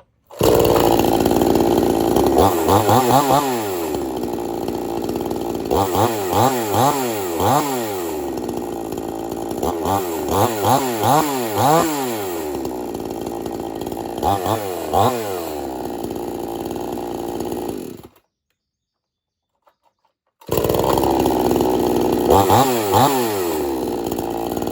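Two-stroke chainsaw running after a warm restart without choke, revved up and down several times. It stops abruptly about 18 seconds in and is running and revving again a couple of seconds later.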